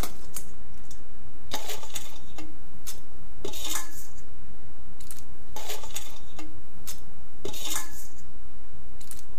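Raw crab pieces dropped by hand into an aluminium kadai, their hard shells clattering against the metal pan. The biggest clatters come about every two seconds as each handful goes in, with lighter clicks between.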